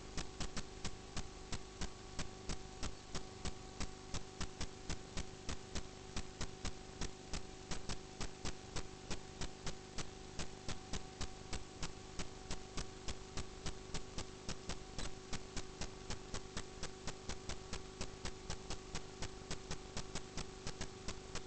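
Steady electrical hum with an even ticking, about four ticks a second.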